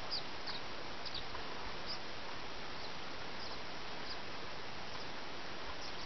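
Wild turkeys calling in alarm: short, sharp, high calls scattered irregularly, about two a second at times, over a steady hiss, in protest at a golden eagle attack on the flock.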